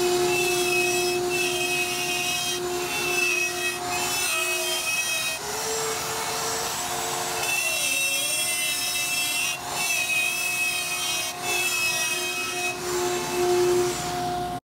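Porter-Cable plunge router running at speed, its straight bit routing a circular hole in plywood around a hole template. A steady high motor whine sits over the hiss of the cut and wavers as the bit bites. The sound stops abruptly near the end.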